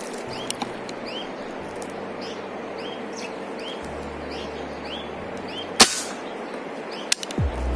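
A small bird chirping, short rising-and-falling chirps about two a second, then about six seconds in a single sharp crack, the shot of a Precihole NX100 .177 air rifle.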